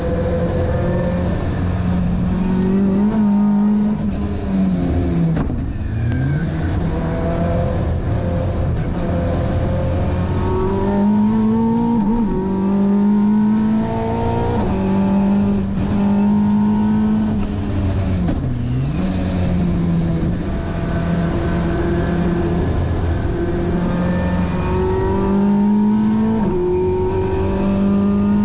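Race-tuned Vauxhall 2.3-litre XE four-cylinder engine on individual throttle bodies, heard from inside a Toyota Starlet KP61 being driven hard on track. The engine note repeatedly climbs through the revs and drops sharply at the gear changes. It dips deeply twice, about 6 and 19 seconds in, as the car slows for corners and changes down.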